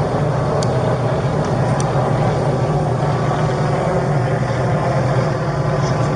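Steady, unchanging engine drone with a constant low hum.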